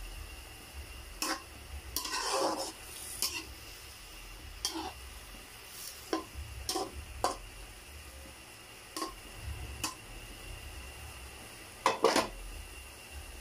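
A metal ladle stirs shrimp in sauce in an aluminium wok, scraping and clinking against the pan in scattered strokes, with a loud double clatter near the end. A faint steady hiss runs underneath.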